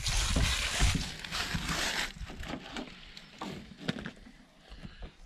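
Nylon tent strap pulled snug through its buckle: a rasping slide for about two seconds with a few knocks of handling, then softer rustles and clicks.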